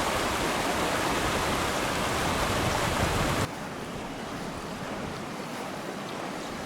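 Steady rush of flowing water, which drops suddenly to a quieter, duller rush about halfway through.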